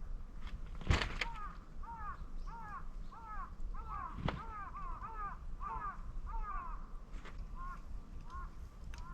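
A crow cawing in a rapid run of short, arched calls that slows and trails off near the end. Two sharp cracks, about a second in and a little past four seconds, from burning moso bamboo popping in the fire.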